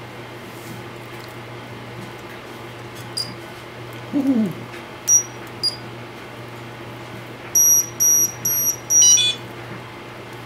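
ImmersionRC Vortex 230 Mojo FPV quad powering up as its battery is plugged in, giving short high-pitched electronic beeps. Near the end come four evenly spaced beeps, then a quick run of tones stepping down in pitch. A steady low hum runs underneath.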